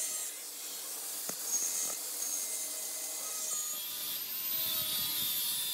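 Handheld angle grinder running, its disc grinding against steel square tubing with a steady high whine and rasp.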